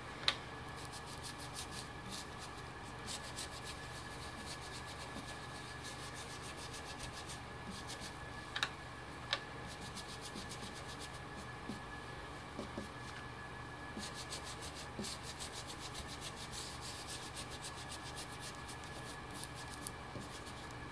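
Soft, repeated rubbing of an ink blending brush worked in quick strokes over a plastic stencil on card. A few light knocks come near the start and twice about eight or nine seconds in.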